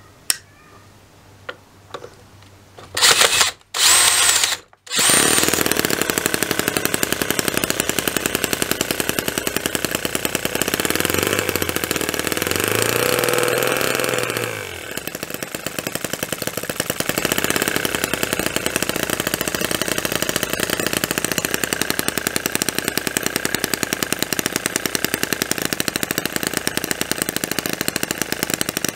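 MUSA F1 2.7 cc single-cylinder model engine being started with an electric drill, which runs in short bursts about three to five seconds in; the engine catches and runs with a fast, even firing. Its note shifts for a few seconds around the middle while a hand adjusts the fittings at the top of the engine, then it runs steadily again.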